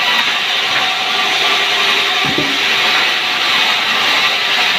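Sawmill band saw running and cutting pucung hardwood, a loud steady hiss of the blade through the wood, with a single low thud about halfway through.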